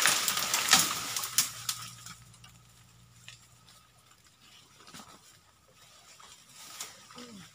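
Dry leaves and twigs crackling and rustling underfoot as a person steps through undergrowth: dense and loud for the first two seconds, then only scattered faint crackles.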